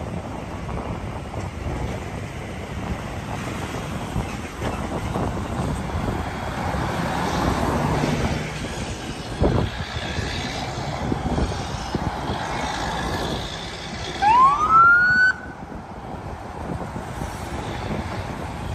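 A convoy of cars and trucks driving past, with steady engine and tyre noise and a brief knock about halfway. About three-quarters through, an emergency vehicle's siren gives one short rising whoop, the loudest sound, and cuts off.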